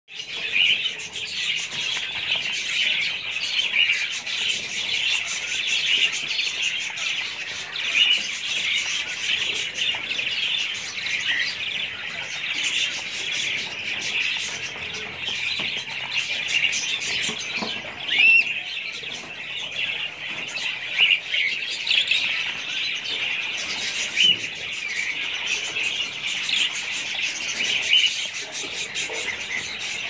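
A cage of young quail chicks peeping and chirping without pause, many calls overlapping, with a few louder single chirps now and then.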